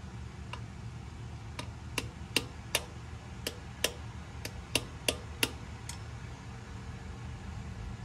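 About a dozen light, sharp metal-on-metal taps, irregularly spaced over five seconds: a hammer tapping a socket to start a new pilot bearing into the crankshaft. A steady low hum runs underneath.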